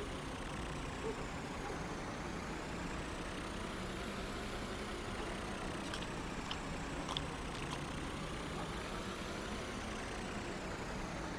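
Engine sound effect of a cartoon car driving along, running steadily, with a few light clicks about six to seven seconds in.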